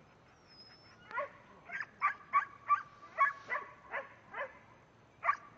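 A herding dog barking at cattle: a quick run of about nine sharp barks starting about a second in, then a pause and one last bark near the end.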